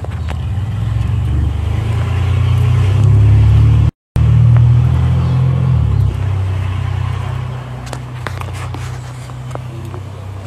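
A motor vehicle engine running with a deep, steady rumble that builds for the first few seconds and then fades from about six seconds in. The audio cuts out for an instant just before the four-second mark, and a few light clicks come near the end.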